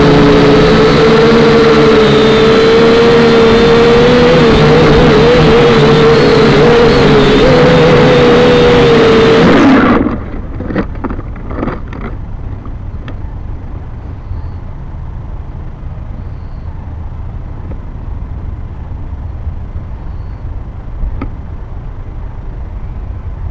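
Small remote-controlled aircraft's motor and propeller whining loudly, pitch wavering, with wind rush on the onboard microphone. It cuts off abruptly about ten seconds in as the aircraft comes down into a tree, followed by a few crackles of branches and then faint wind and rustling.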